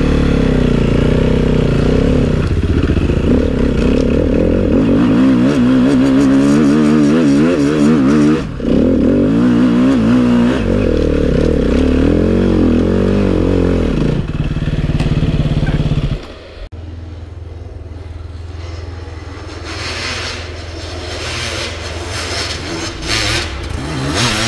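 Enduro dirt bike engine revving hard and unevenly, its pitch rising and falling with the throttle. About sixteen seconds in the engine sound drops away abruptly, and another dirt bike's engine is then heard growing louder toward the end.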